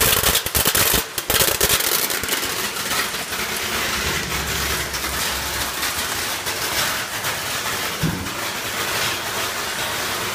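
Shelled-peanut colour sorter running: a dense rapid clicking with hiss for about the first two seconds, then a steadier hiss with scattered clicks, typical of the sorter's air-jet ejectors firing and kernels pattering through the chutes.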